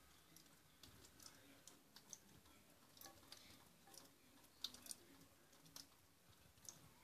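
Water dripping inside a bathroom ventilation duct from a hidden leak: faint, irregular sharp ticks and clicks, several a second.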